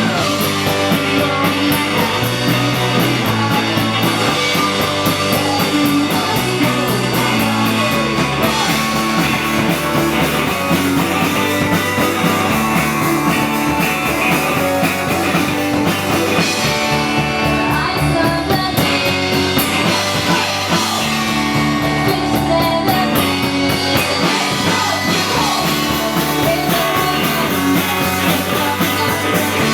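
Rock music with guitar and a singing voice, played at steady loudness.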